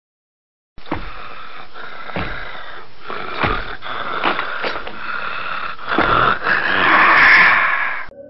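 Raspy, growl-like noise with irregular heavy thumps, starting about a second in and swelling louder near the end before cutting off.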